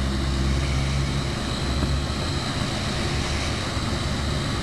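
An engine drones steadily under outdoor background noise, its low hum dropping away about a second and a half in.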